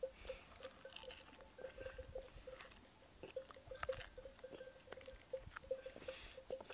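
Faint chewing and mouth smacks of a man eating food by hand close to the microphone: small irregular clicks, several a second.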